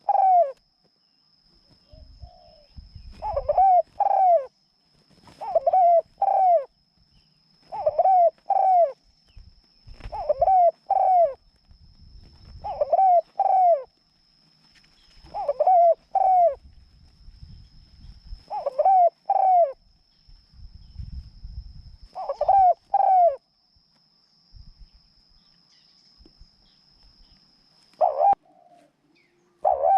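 Decoy dove calling: pairs of short downward-sliding coos, repeated about every two to three seconds, with a pause of a few seconds near the end.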